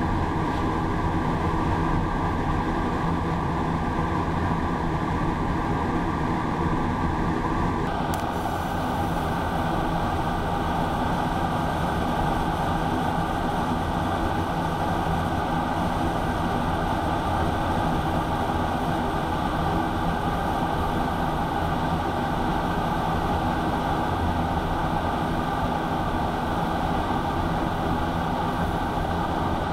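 TIG welding arc on stainless steel sheet: a steady hiss and hum that holds without break, shifting in tone about eight seconds in.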